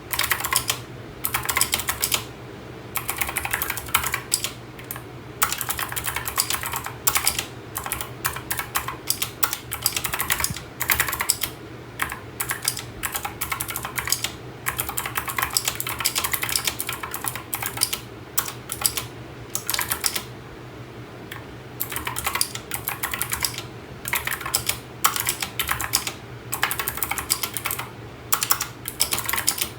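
Typing on a mechanical keyboard with Gateron switches: rapid runs of key clicks in bursts of a second or two, broken by short pauses, over a faint steady low hum.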